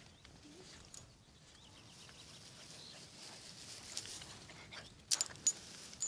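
Footsteps and rustling through long grass, with a few short sharp clicks, the loudest two about five seconds in.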